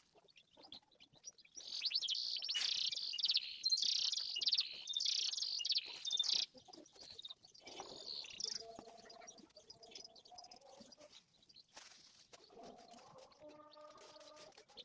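Canary singing a fast, high-pitched trilling song for about five seconds, starting about two seconds in, then breaking off into fainter snatches.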